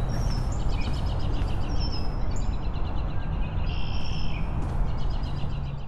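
Outdoor ambience: birds chirping in repeated quick trills over a steady low rumble of background noise.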